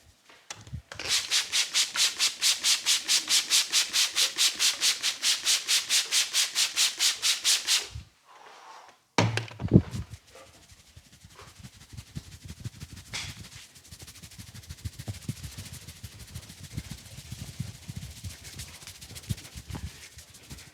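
Brisk, even rubbing of a barber's hands during a head massage, about five strokes a second for some seven seconds. After a short break comes a single thump, then a run of soft, quick pats.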